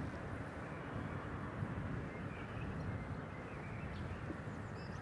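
Outdoor ambience on a bicycle ride: a steady low noise of wind and rolling, with a few faint bird chirps near the end.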